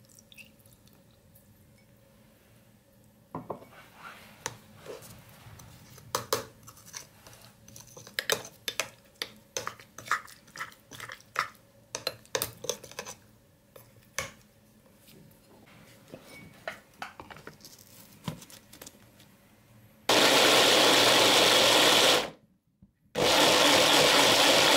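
A metal spoon stirs and scrapes a wet mixture in a plastic chopper bowl, a quick run of clinks. Then an electric mini chopper runs in two bursts of about two seconds each with a short stop between, pulse-blending the grated ginger and garlic with water.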